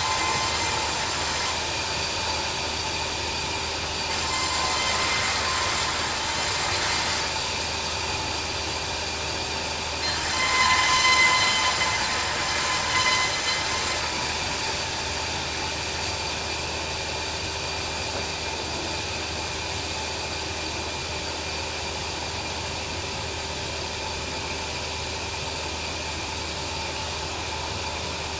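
Bandsaw sawmill running with a steady hum, its blade cutting through timber in three louder, hissing stretches of a few seconds each in the first half, then running on steadily without the cutting noise.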